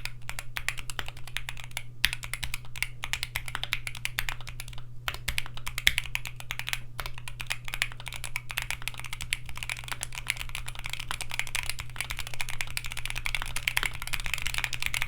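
Fast, continuous typing on a Keychron Q1 HE aluminium Hall-effect keyboard in stock configuration, with Gateron Double-Rail Nebula magnetic switches, GMK keycaps and lubed, tuned stabilizers. Dense keystroke clicks run with brief pauses about 2 and 5 seconds in.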